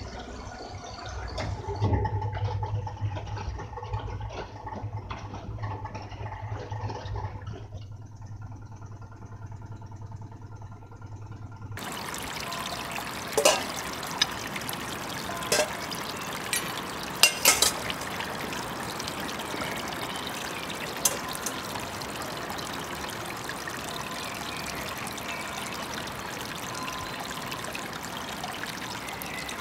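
A front-loading washing machine running, a steady low hum under water churning in the drum; after about twelve seconds it cuts to a shallow stream's steady trickle, with a few sharp clinks of a stainless steel bowl being scrubbed at the water's edge.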